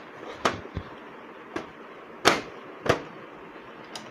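Plastic side cover of a Canon LBP 2900 laser printer being pressed and snapped onto the printer body: a series of sharp plastic clicks and knocks, the loudest a little over two seconds in.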